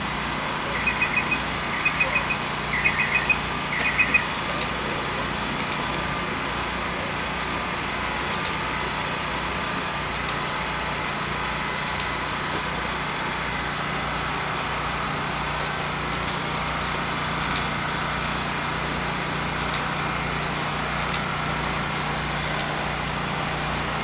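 Steady mechanical rumble with a low hum. About a second in come four quick bursts of high chirps, about a second apart. From about fifteen seconds in, faint scattered crackles come from Pop-Tarts and hanging fabric burning in open flame above a toaster.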